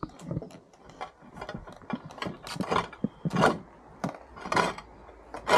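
A run of irregular mechanical clicks and short scraping rasps, with the louder rasps coming after about two and a half seconds.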